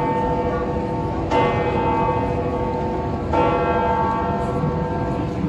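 A single church bell of St. Peter's Basilica tolling slowly. It is struck about once every two seconds, twice here, and each stroke rings on into the next.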